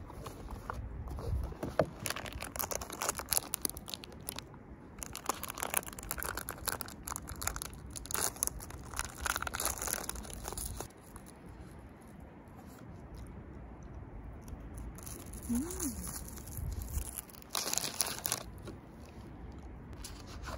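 Plastic snack wrapper crinkling as it is handled and torn open, in dense crackly rustles through the first half and another short burst near the end.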